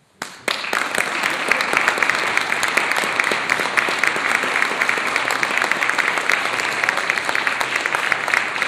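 Seated audience applauding, many hands clapping at once. The applause breaks out suddenly about half a second in and then holds at an even level.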